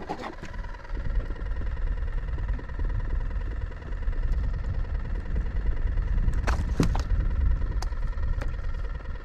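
Wind buffeting the microphone as a low, gusting rumble, with a few sharp clicks and knocks of handling near the end.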